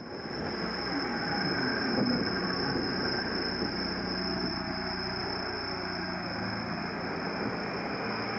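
Steady riding noise from a bicycle-mounted action camera: wind and road rumble from the moving bike, with a constant high-pitched whine throughout.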